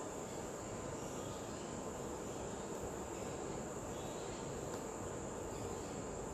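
Steady background hiss with a constant high-pitched whine, even throughout, with no distinct knocks or clicks.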